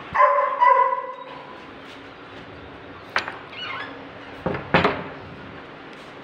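A dog gives two short high whines just after the start. About three seconds in comes a sharp click, and then two knocks just before five seconds, the sounds of a door latch and door being handled.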